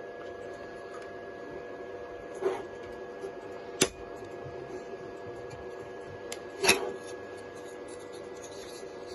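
3D printer running with a steady, multi-toned motor hum. Three short knocks and clicks stand out: one about two and a half seconds in, a sharp click near four seconds, and the loudest about seven seconds in.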